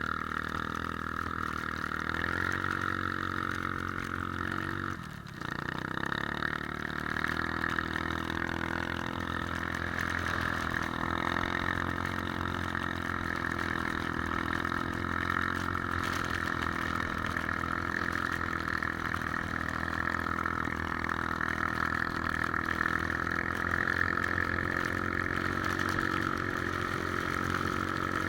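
Three-wheeler ATV engine running steadily while riding, its note dipping briefly about five seconds in before picking back up.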